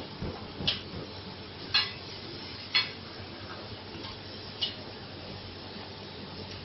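Kitchen dishes or utensils clinking: four short, sharp metallic clinks, the first three about a second apart, over a steady hiss.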